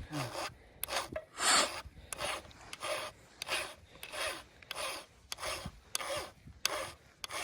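Hand file being stroked across a chainsaw chain's cutting teeth to sharpen them: a steady run of short rasping strokes, about two a second.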